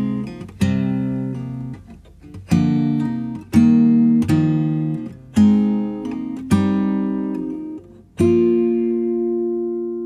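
Closing music on acoustic guitar: slow strummed chords about every second or so, the last one, a little after eight seconds in, left to ring out and fade.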